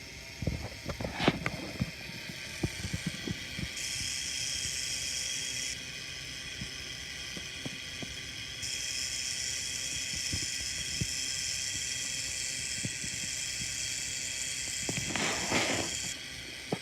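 K'NEX merry-go-round model running: its small motor whirs through the plastic gears, with scattered clicks and knocks from the plastic parts. A higher hiss comes in a few seconds in and again from about the middle.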